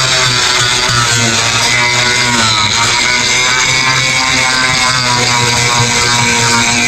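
Background music with guitar playing steadily.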